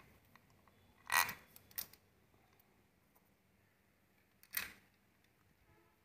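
A few sharp clinks of tools and parts as a motorcycle clutch is being fitted back onto the engine: a loud one about a second in with a short ring, a smaller one just after, and another later on.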